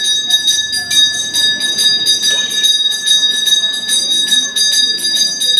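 Temple hand bell rung rapidly and without a break, several clapper strokes a second, giving a steady high ringing.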